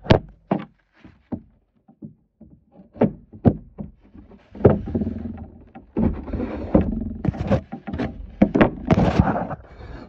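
Wooden martin birdhouse being handled and opened: several sharp wooden knocks in the first few seconds, then a longer stretch of knocking, scraping and rubbing as the painted wooden box is lifted open.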